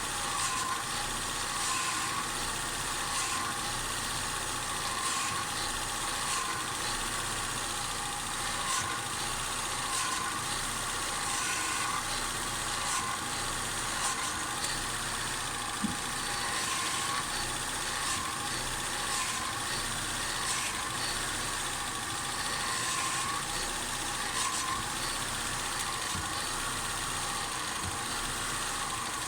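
Daewoo Lanos 1.5 engine idling while the steering is turned to lock and back, with faint knocks that repeat roughly every two seconds. The knock on full steering lock comes from a crack in the body next to the steering rack.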